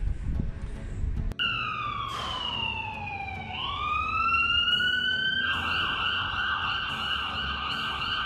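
Electronic ambulance siren: after a brief rumble of street noise, it sweeps down in pitch, climbs back up, then switches to a fast warble and cuts off.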